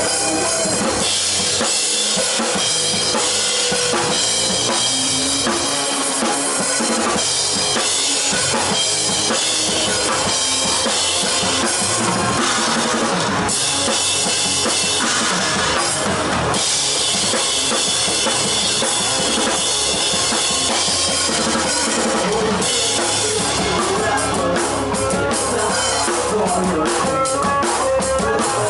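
Live rock band playing with the drum kit prominent: kick drum, snare and cymbals driving the song, with rapid drum hits near the end.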